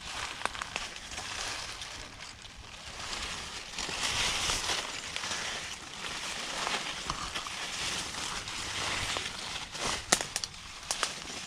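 Dry weeds, twigs and fallen leaves rustling and crackling underfoot and against the body as someone pushes through brush on foot, with a sharp crack near the end.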